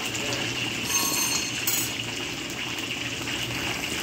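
Battered chicken strips deep-frying in hot oil in a steel wok, a steady sizzle.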